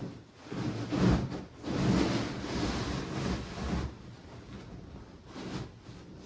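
Handling noise as a large flat-screen TV is lifted and moved: rubbing and scraping with a few bumps, loudest in the first four seconds and quieter after.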